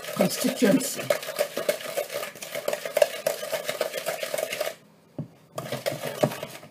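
Wooden spoon beating margarine and sugar in a plastic mixing bowl by hand, creaming them to a creamy consistency: rapid scraping and knocking strokes against the bowl. The strokes stop a little under five seconds in, then come back for about a second.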